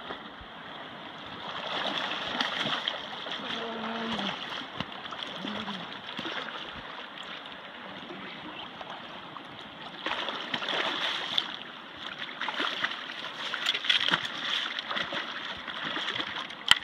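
Steady rush of river water, broken by louder bursts of splashing, first about two seconds in and again from about ten seconds on, as a hooked Chinook salmon thrashes in the shallows while it is being landed by hand. A single sharp click comes near the end.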